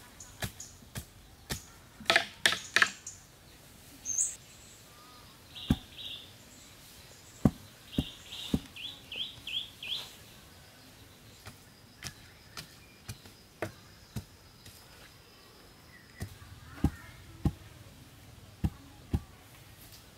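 Irregular sharp knocks and taps of wooden poles being set and firmed into the ground, loudest in a quick cluster about two to three seconds in. Birds chirp, with a run of four or five quick high chirps in the middle.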